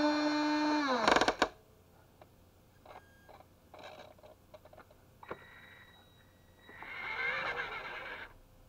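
Small electric motor and gearing of a toy RC forklift: a steady whine that falls in pitch and stops about a second in, followed by a brief clatter. Light clicks follow, then a second stretch of motor and gear whirring near the end as the forklift moves again.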